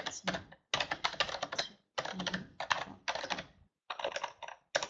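Typing on a computer keyboard: quick runs of keystrokes in four bursts with short pauses between them.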